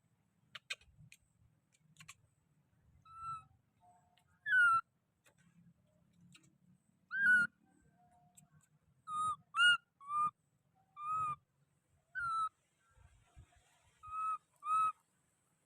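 Baby monkey giving short, high, whistle-like coo calls, about ten of them at irregular intervals, each a brief note that rises and falls.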